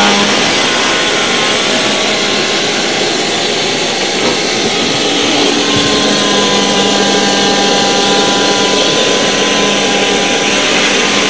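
Vacuum cleaner running steadily with a continuous motor whine, its pitch shifting slightly about halfway through.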